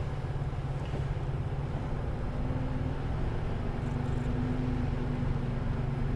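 In-cab sound of a Mercedes-Benz Antos 1824 lorry: its diesel engine running steadily with a low rumble. A faint steady hum joins about two seconds in.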